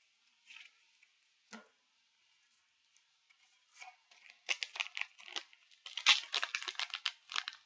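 Foil booster pack wrapper being torn open and crinkled by hand, after a few faint taps near the start. The crackling begins about halfway through and grows denser and louder toward the end.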